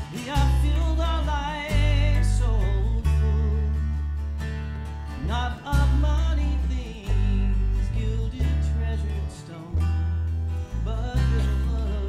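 A live folk band playing a slow waltz: strummed acoustic guitar, mandolin and electric guitar over deep bass notes that change every second or two, with a wavering melody line on top.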